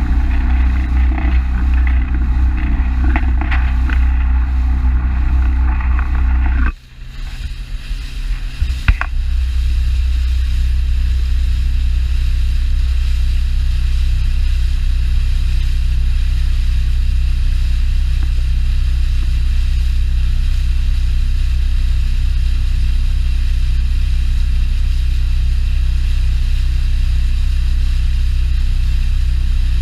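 Outboard engine of a Polarcirkel rigid inflatable boat running steadily under way, a loud low drone. About seven seconds in it drops away sharply for a couple of seconds, then comes back as an even, duller drone.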